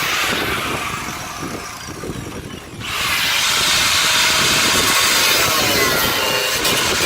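Power saw cutting through the car's sheet-steel floor panel. It eases off with a falling pitch about a second in, then bites back in loudly just before three seconds and runs on steadily.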